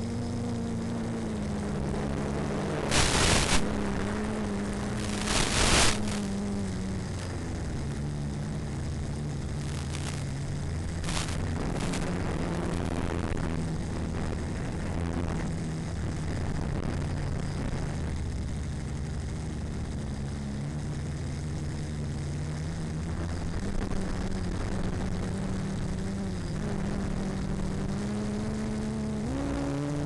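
RC plane's motor and propeller running, heard from the onboard camera, with a steady hum that drifts in pitch as the throttle changes and rises sharply near the end. Two loud rushing noise bursts come about three and five and a half seconds in.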